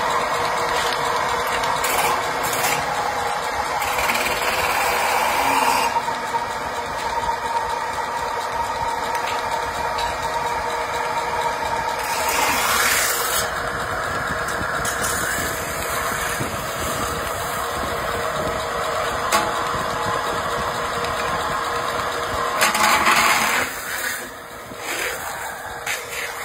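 Metal-spinning lathe running steadily as an aluminium pot blank turns over a wooden former and a hand spinning tool is pressed against the metal, with a continuous machine hum and a steady tone. The sound swells into louder rushing surges about halfway through and again near the end.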